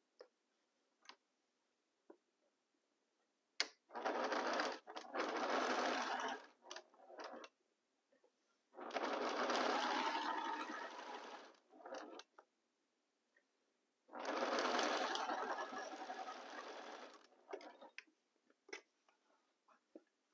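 Electric home sewing machine stitching through layered cotton fabric in three runs of about three seconds each, starting and stopping, with small clicks in the pauses between.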